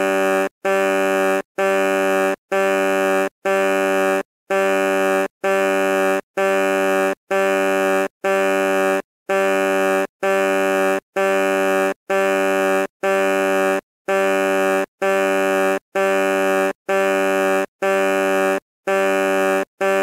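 Truck horn beeping in an unbroken series of blasts, each just under a second long with a short gap between, about one a second, at the same steady pitch each time.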